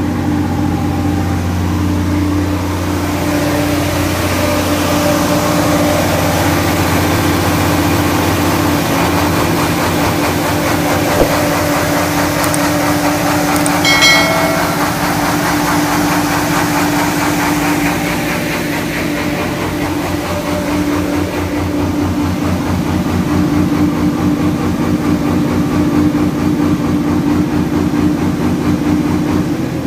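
Diesel engine of a 250 kVA Powercity generator set running steadily at about 1,800 rpm with no load. A short electronic chime sounds about halfway through, and at the very end the engine is shut down and begins to slow.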